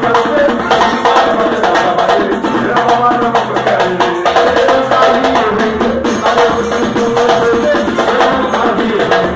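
Brazilian batucada percussion group playing a drum groove with many dense strokes, with a melody of held pitched notes over it.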